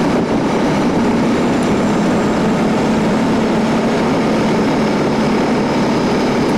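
ATV (quad bike) engine running steadily under way, its even drone mixed with a rushing noise.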